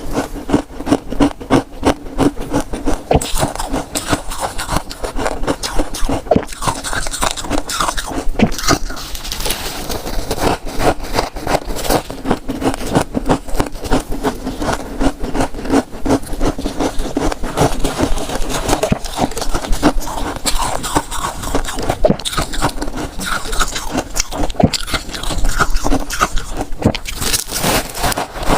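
Close-miked freezer frost being scraped and chewed: a dense, unbroken run of fine crunches and scrapes.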